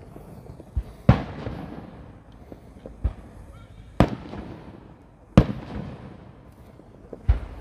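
Aerial fireworks shells bursting: a string of sharp booms a second or two apart, four of them loud and two fainter, each trailing off in a fading rumble.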